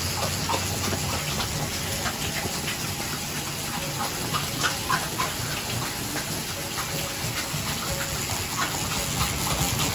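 Bathroom tap running a thin steady stream into the sink basin, with small scattered clicks and scrapes over it.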